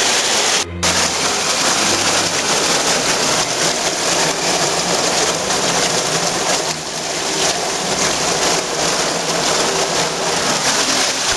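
Karst stream in flood rushing and splashing loudly as it pours down a hole between limestone blocks into a low bedding plane. The sound cuts out for a moment under a second in, then carries on as before.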